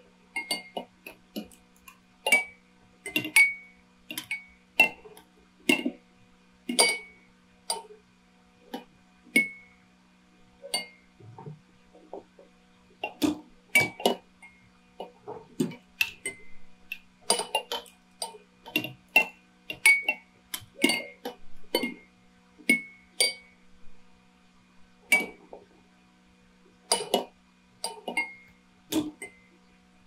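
Dozens of drinking bird toys dipping at irregular moments, making sharp clicks and clinks as they tip into their glasses of water, some with a brief glassy ring. A steady low hum runs underneath.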